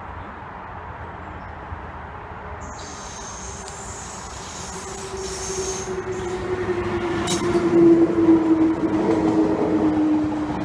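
SNCF Z 6400 electric multiple unit approaching and running past, its wheels on the rails growing steadily louder from about five seconds in. A faint high squeal comes in about three seconds in, and a whine slowly falls in pitch as the train draws level.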